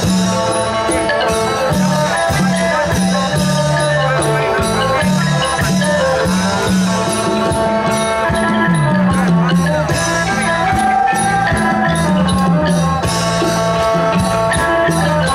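Isan pong lang folk band playing live through stage loudspeakers: a fast, steady beat with rattling percussion, a bass line moving between two or three notes, and melody instruments on top.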